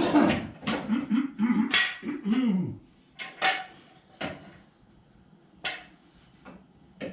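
A man grunting and groaning with effort for about three seconds, then several sharp metallic clanks of tools and steel on the floor, spaced about a second apart.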